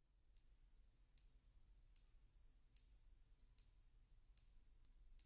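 High-pitched metal percussion instrument struck in a steady pulse, seven strokes about 0.8 s apart, each ringing on a single high note and fading before the next. The note is D, the piece's only tuned sound.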